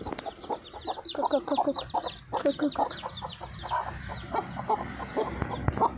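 Mother hen clucking rapidly while feeding, over the high, quick cheeping of her young chicks.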